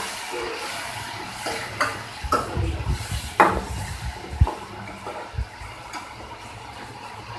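Chopped onions, green chillies and tomatoes sizzling in hot oil in a metal kadhai while being stirred with a steel spoon. The spoon knocks against the pan several times in the middle, and the sizzle fades toward the end.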